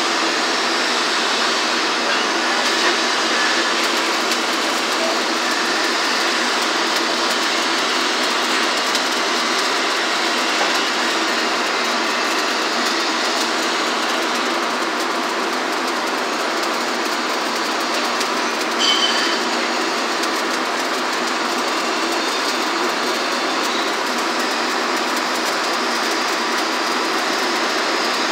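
Stick-welding arc burning steadily with a continuous crackling sizzle as an Excalibur electrode is run along the joint. There is one brief, louder burst about two-thirds of the way through.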